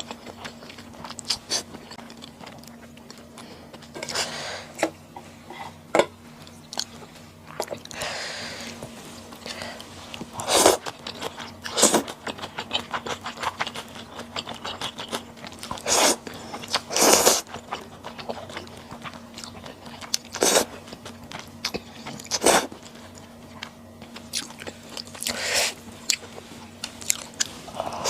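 Close-miked eating sounds: a person chewing and biting, with small wet mouth clicks between several louder bursts about half a second long, a few seconds apart. A faint steady hum runs underneath.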